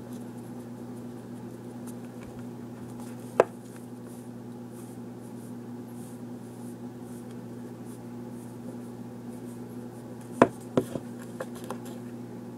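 A teaspoon being filled with cinnamon from its container: quiet rubbing and scraping of handling over a steady low hum, with one sharp clink about three and a half seconds in and a quick run of clicks and taps near the end.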